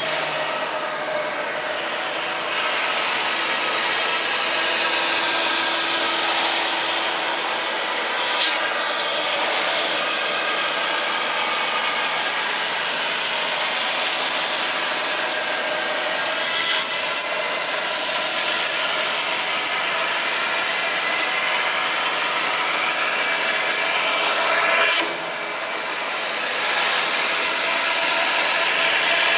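5-axis CNC router with a Hiteco 20 kW spindle running its end mill through a foam boat hull mould, a steady hissing cut. It grows louder about two and a half seconds in and drops briefly near the end.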